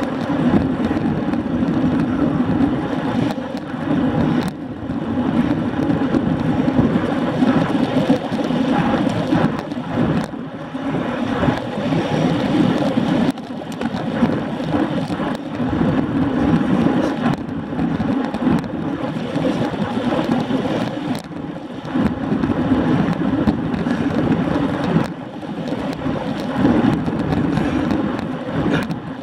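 Wind rushing over a bike-mounted camera's microphone with tyre noise on tarmac, from a road bicycle riding at about 18 mph. It is a steady, loud rumble with a few brief dips.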